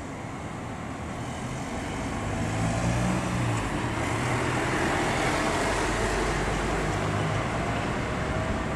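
A passing vehicle's engine hum and noise, swelling over the first few seconds and then holding steady.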